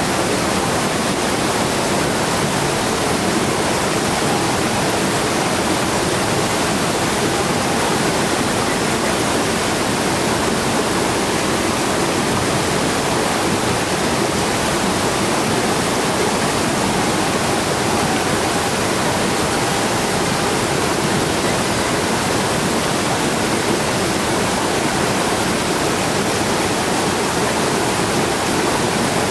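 Steady, unbroken rush of water, even and unchanging throughout.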